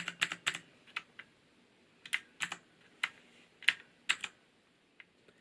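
Keys pressed on a Cherry MX Board 1.0 TKL mechanical keyboard with clicky Cherry MX Blue switches. A quick cluster of clicks at the start is followed by single, irregular keystrokes about every half second.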